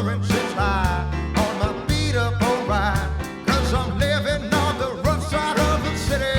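Background music: a country-rock song with singing over a steady beat.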